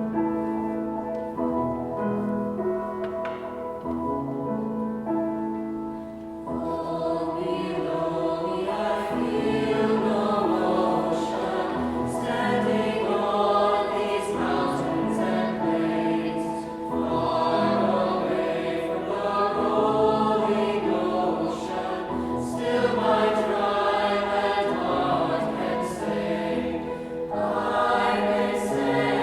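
Choir singing with instrumental accompaniment. The accompaniment plays alone at first, and the voices come in about six seconds in and carry on to the end.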